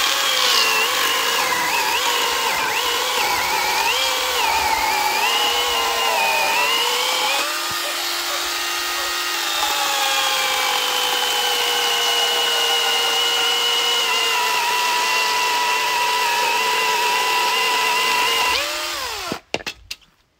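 Cordless electric chainsaw cutting through a log: the motor's whine wavers and dips as the chain bites into the wood, rises briefly about seven seconds in as it clears the cut, then settles into a second, steadier cut whose pitch slowly sags under load. Near the end the motor winds down and stops, followed by a few sharp knocks.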